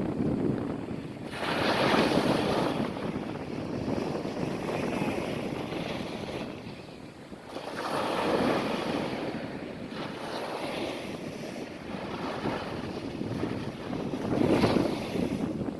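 Ocean waves breaking and washing up the beach at the shoreline, swelling three times about six seconds apart, with a quieter lull between the second and third.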